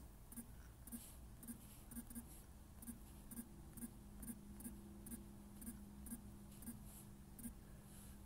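Faint, short key-press clicks from typing a word on an Android phone's on-screen keyboard, roughly two a second. A faint steady hum sets in about three seconds in.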